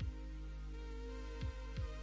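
Quiet background music: held electronic chords with a deep kick drum thumping three times.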